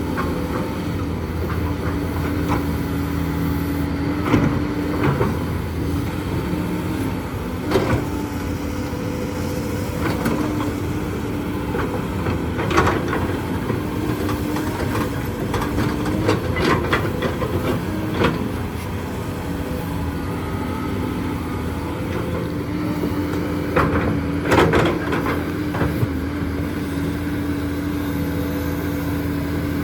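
Hydraulic excavator's diesel engine running steadily, with sharp metallic clanks and knocks every few seconds as it digs limestone, several close together near the end.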